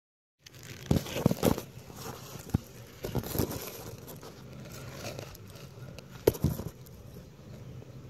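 Rustling and sharp knocks from a handheld camera being moved, with a cluster of knocks about a second in and another loud one near six seconds, over a faint steady low hum.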